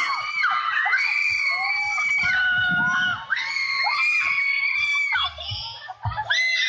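A crowd of girls screaming and shouting cheers, many high voices at once in long held calls of about a second each, with a brief lull near the end.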